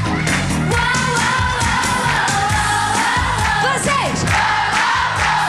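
Upbeat pop song: a woman singing the melody over a steady dance beat.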